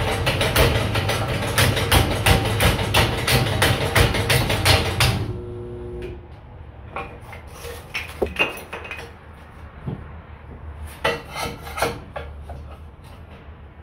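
Home-made motor-driven kindling splitter running, its crank-driven blade knocking about three times a second as it splits wood, until it stops abruptly about five seconds in and winds down. Afterwards there are scattered knocks and clatters of wood and split kindling sticks being handled.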